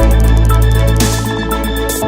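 Electronic background music with a heavy bass and a steady drum beat.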